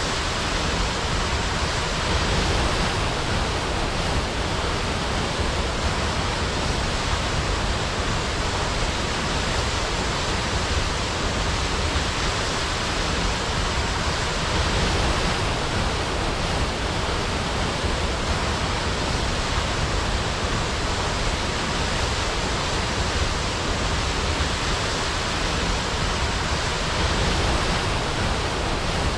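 Waterfall: falling water rushing in a steady, unchanging hiss.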